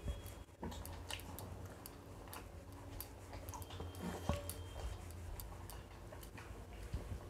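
Eating by hand: chewing and fingers working biryani rice against glass plates, with scattered small clicks and taps over a low steady hum.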